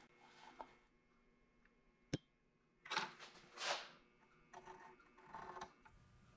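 Faint sounds of sheet aluminium being handled and marked on a metal workbench: a single sharp click about two seconds in, then a few short scraping rustles.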